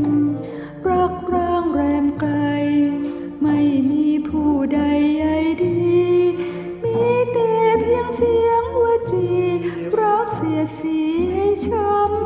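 Karaoke backing music for a Thai pop ballad: a wavering melody line over a steady, repeating bass pattern, with no lyrics sung yet.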